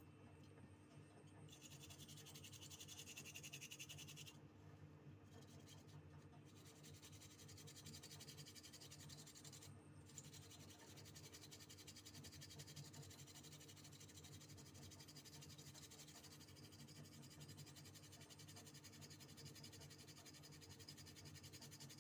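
Faint, steady scratching as a water-damaged mobile phone's circuit board is scrubbed clean, strongest for a couple of seconds near the start, over a low steady hum.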